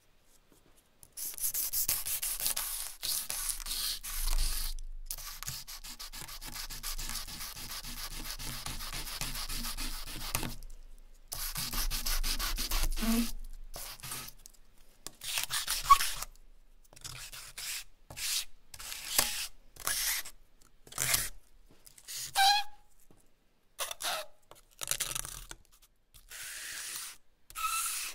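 A lump of potato charcoal scraped and rubbed across smooth heavy paper. For the first ten seconds or so the scratching runs nearly without a break, then it comes as shorter separate strokes with pauses between, a few of them squeaking briefly.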